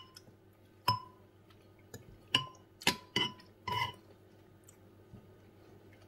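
Metal fork and spoon clinking against a ceramic casserole dish: about five or six short ringing clinks at uneven intervals, ending about four seconds in.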